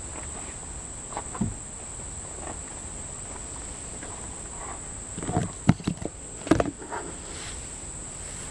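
A steady high-pitched insect drone, like crickets, throughout. Several sharp knocks and short rubbing or handling noises come in a cluster about five to seven seconds in, with a single knock earlier.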